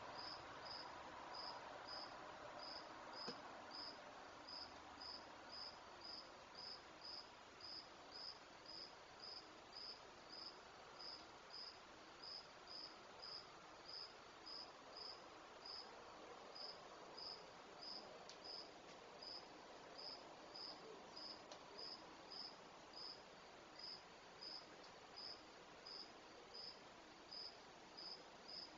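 Faint, steady chirping of a cricket, about two short high chirps a second, over a low hiss.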